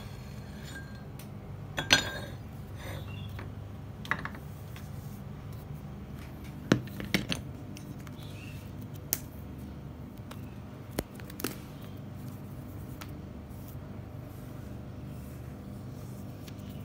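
Scattered clicks and knocks of hard parts being handled: the plates and cutting die of a homemade leather clicker press being lifted out and set down with the cut leather. The loudest knock comes about two seconds in, with a quick cluster around seven seconds and single clicks later, over a steady low hum.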